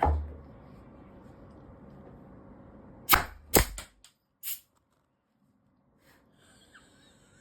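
Pneumatic de-nail gun firing three sharp shots to punch old nails out of reclaimed timber: one at the start, with a brief low thud after it, and two more about half a second apart around three seconds in. A short hiss follows about a second later.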